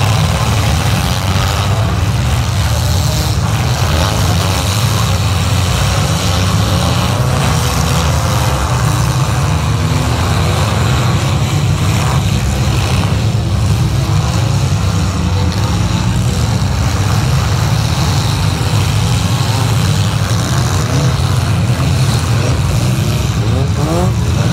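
Engines of several demolition derby compact cars running together in a loud, steady low rumble, their revs rising and falling as the cars drive and push.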